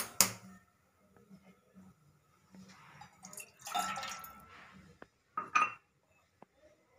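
A sharp knock just at the start, then milk is poured from a ceramic cup into a stainless-steel saucepan, splashing for about a second near the middle. Two short clinks follow.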